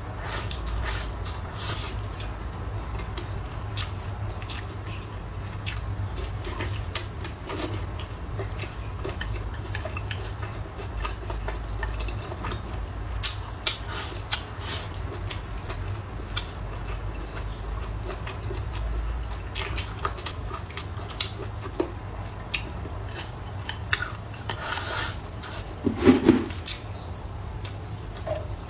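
Chopsticks and utensils tapping and scraping on bowls and plates while eating, a scatter of small irregular clicks with a few louder knocks near the end, over a steady low hum.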